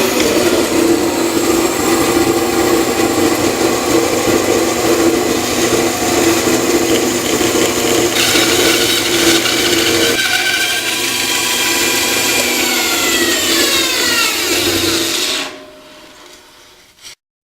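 Band saw running and cutting through a cherry wood blank. About twelve seconds in, the saw is switched off and its whine falls in pitch as it coasts down, then it stops.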